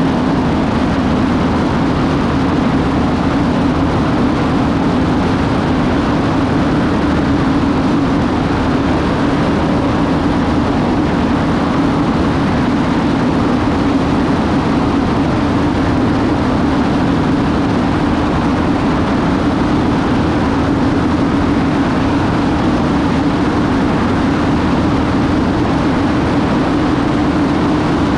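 Cessna 210D Centurion's six-cylinder engine and propeller in steady cruise, a constant drone with a strong low hum, mixed with the rush of airflow over a wing-mounted camera.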